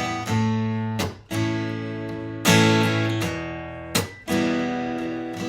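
Martin GPCPA4 acoustic guitar strumming chords, each strum left to ring until the next, a new one struck every second or so.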